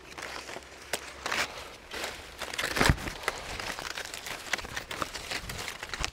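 Foliage and twigs rustling and crackling as a guava tree's branches are handled during pruning, with scattered sharp clicks and snaps; the loudest snap comes about three seconds in.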